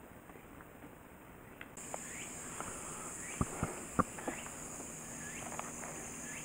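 Steady high buzz of summer insects, coming in abruptly about two seconds in, with a few short rising bird chirps and two sharp knocks about three and a half and four seconds in.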